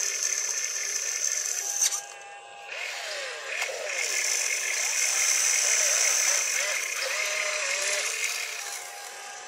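Small electric motors of a radio-controlled excavator whining with a mechanical rattle as it swings and works its boom. The whine cuts out briefly about two seconds in, then runs again.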